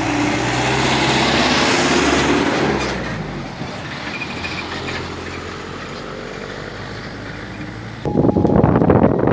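A bus engine passing close by, its rush swelling and then fading over the first three seconds, followed by quieter passing traffic of motorcycles and a small pickup truck. Near the end the sound jumps suddenly louder into a steady rush.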